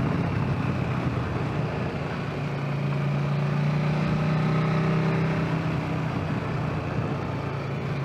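Motorcycle engine running at a steady cruising speed, heard from on the bike, with wind rush across the microphone.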